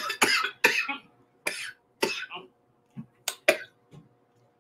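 A woman coughing in a fit of short, sharp coughs, several in quick succession in the first second, then spaced farther apart, as spicy Tabasco hot sauce catches her throat.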